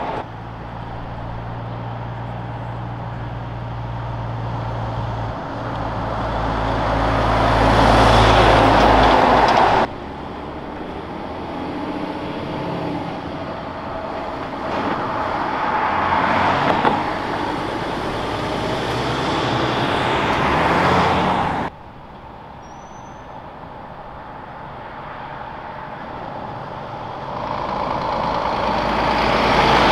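Heavy trucks driving past on a city street, in three clips cut together. Each time the engine and tyre noise swells as a truck approaches and passes, then cuts off abruptly at the edit, about a third and two-thirds of the way through. The first pass has a steady low engine drone beneath it.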